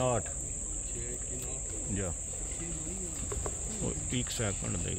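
Crickets trilling in one high, steady, unbroken tone, with faint voices talking underneath.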